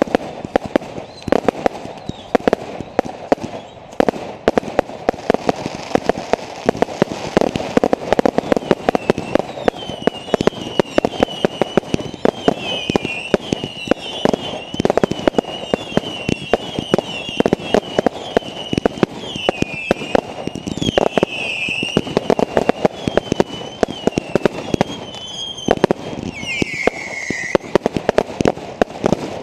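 Fireworks going off in rapid succession, with dense crackling and bangs throughout. From about ten seconds in, high wavering whistles join them, ending near the end in a falling whistle.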